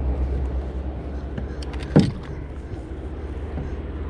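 Handling noise as a landed bass is brought into a kayak: light knocks and clicks over a steady low rumble, with a brief sharp sound falling in pitch about two seconds in.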